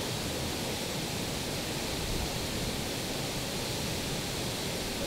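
A steady, even rushing hiss with no pitch or rhythm.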